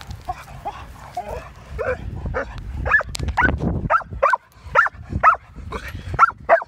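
American Pit Bull Terrier yelping and barking in short high-pitched calls, faint at first and then loud and rapid, about two a second, from about three seconds in. It is the eager yipping of an excited dog held back on its leash before a work session.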